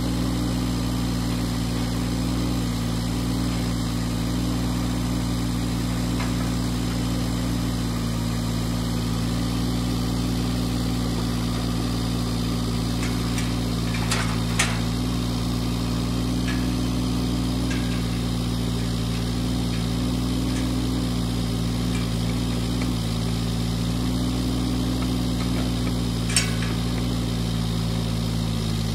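Mini excavator's diesel engine running steadily while its arm lifts a steel fence panel. Short sharp metal clanks from the panel come a little before halfway, twice in quick succession, and once more near the end.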